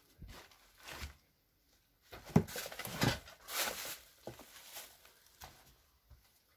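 Footsteps and scuffing across a floor strewn with junk and debris: a string of irregular soft thuds and rustles, busiest in the middle.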